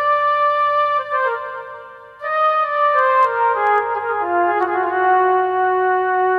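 Background music: a slow melody of long held notes. One phrase fades out about two seconds in, and the next begins right after, stepping downward note by note.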